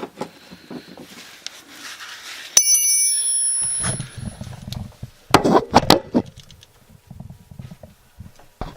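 A metal tool clanging once against metal, with a bright ring that fades over about a second, followed by knocks and scraping from working under the engine.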